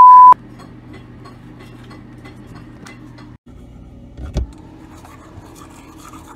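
A loud, steady, single-pitch censor bleep over a swear word cuts off about a third of a second in. After it, a quiet low hum carries on with faint clicks and a dull thump about four seconds in.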